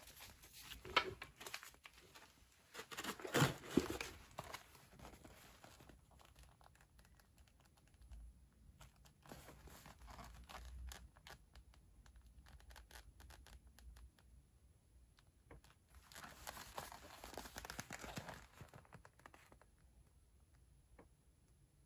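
Ration packaging being handled: plastic food wrappers crinkling and a cardboard biscuit box rustling in irregular bursts, loudest a few seconds in, with another burst near the end.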